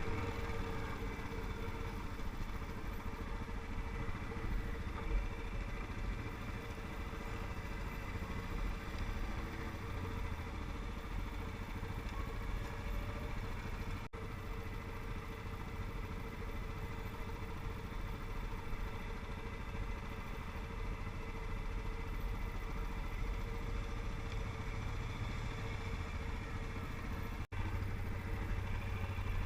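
ATV engine running steadily at an even pitch, with the sound cutting out for an instant twice.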